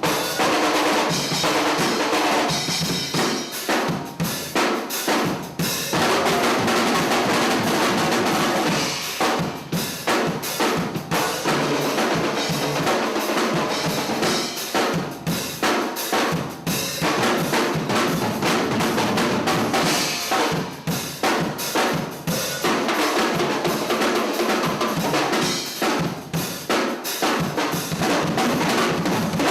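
Drum kit being played: bass drum and snare with rimshots and fast rolls, struck densely and without a break.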